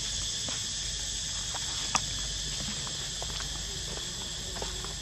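A steady, high-pitched drone of insects in the forest, with scattered light clicks and one sharper click about two seconds in.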